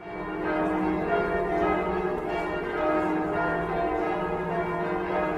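Church bells pealing, several bells struck one after another in steady succession with their tones ringing on and overlapping; the peal fades in at the start.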